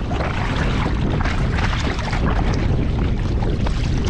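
Steady wind buffeting the microphone, with a low rumble, over water splashing around a kayak paddled through light chop.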